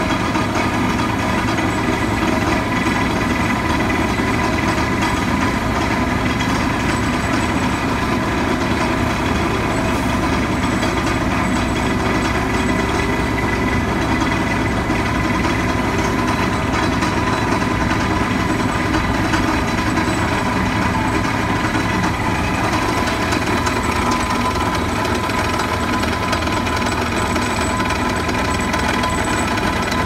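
Hydraulic vibratory pile driver running steadily, shaking a steel H-pile down into sandy ground: a loud, constant machine drone with steady high whining tones.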